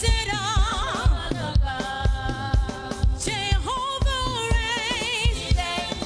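Live gospel praise-and-worship music: a woman singing with a wavering, vibrato-laden voice into a microphone over a band with a fast, steady drum beat.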